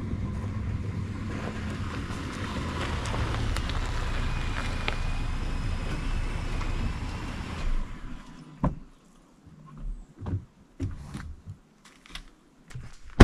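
Ford F-150 pickup truck driving in slowly on a dirt track and stopping, its engine and tyres running steadily until the engine shuts off about eight seconds in. A few sharp clicks and knocks follow as the door opens and the driver gets out.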